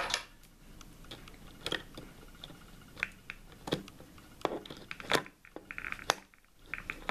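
Plastic clicks and scrapes from hands prying a 9-volt battery out of a digital multimeter's battery compartment: sharp taps scattered throughout, with a brief rattle a little before six seconds.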